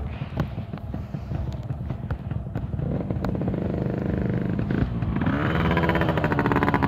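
Motorcycle engine running at low speed with scattered light clicks, then growing louder and rising in pitch over the last couple of seconds as it speeds up.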